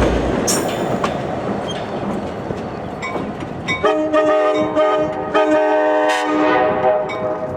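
Train rumble and rail noise for a few seconds, then a Nathan K5LA five-chime locomotive air horn sounds its chord in two blasts with a short break between, the second fading away near the end.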